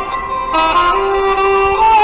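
Background instrumental music: a melody of held notes played by a reed or bowed instrument.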